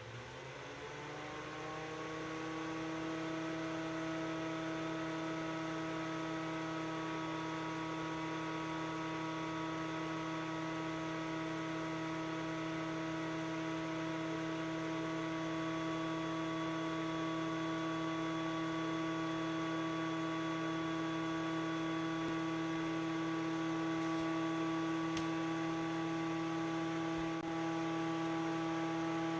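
Cooling fan of a Makita DC18RF battery charger spinning up, its hum rising in pitch over the first couple of seconds, then running at a steady speed with a steady whirring hum.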